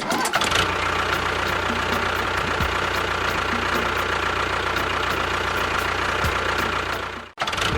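Engine running steadily at idle, with a steady high whine over a low hum, cutting off abruptly near the end.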